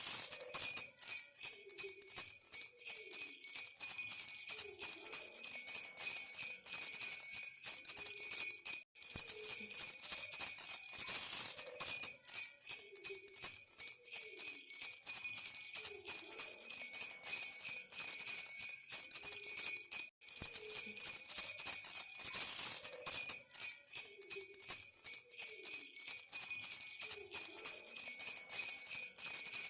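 Baby rattle with small bells shaken continuously: a dense, even jingling that cuts out for an instant twice.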